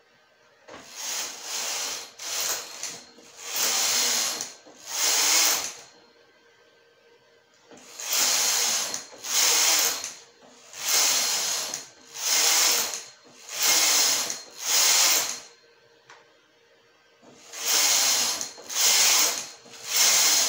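Domestic flatbed knitting machine being worked by hand: the carriage is pushed back and forth across the needle bed, each pass about a second of noisy sliding and clatter. The passes come about one a second, in runs with two short pauses.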